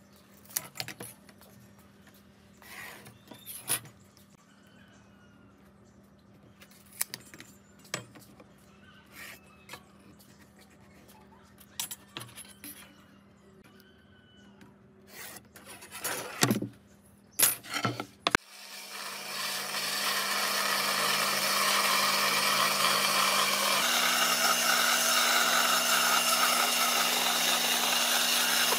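Scattered light taps and scrapes of a steel ruler, tape measure and pencil on a wooden board during marking out. About two-thirds of the way through, an electric saw with a thin vertical blade starts and cuts a curve through the board: a steady, loud cutting noise over a constant hum.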